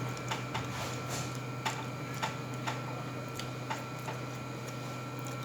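Mouth smacking while chewing food: about ten short, irregular wet clicks, stopping after about four seconds, over a steady low electrical hum.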